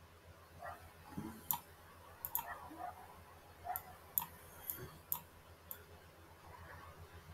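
About ten light, sharp clicks at irregular intervals over a faint steady low hum.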